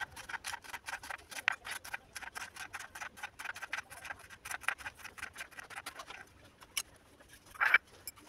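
Kitchen knife chopping on a plastic cutting board in quick, even strokes, about five or six a second, slicing green beans into thin rounds. The chopping stops about six seconds in, and one louder knock follows near the end.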